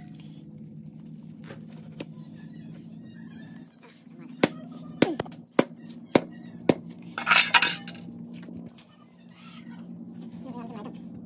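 Sharp clinks and knocks of a knife striking the stone block as a whole chicken is cut open, about half a second apart from a few seconds in, with a short scraping clatter near the middle. A steady low hum runs underneath.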